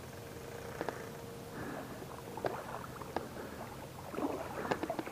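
Steady wash of a shallow, rocky small river, with a few brief sharp ticks spread through it.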